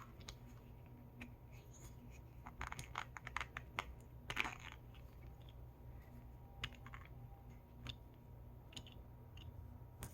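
Faint clicks and scrapes of small plastic toy parts being handled as a mermaid doll is fitted into its removable tail, with a quick flurry of clicks a few seconds in.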